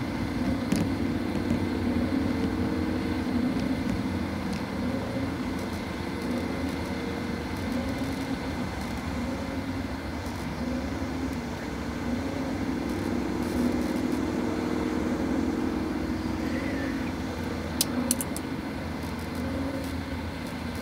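Steady low drone of a car running, with a wavering hum, and a few brief clicks near the end.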